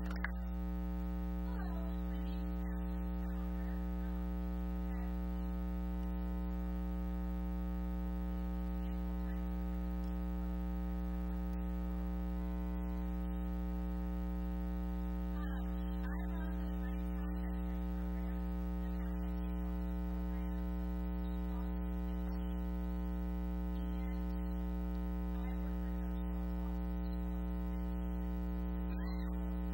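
Steady electrical mains hum, a constant buzz with many evenly spaced overtones that covers the room sound; only faint traces of a voice show through beneath it.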